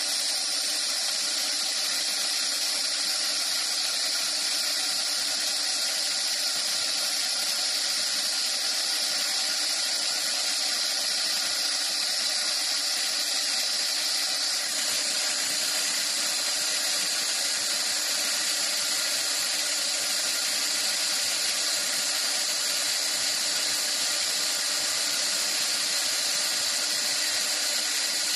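CNC wood lathe running and cutting wood: a continuous high hiss with several steady whining tones underneath, unchanging throughout.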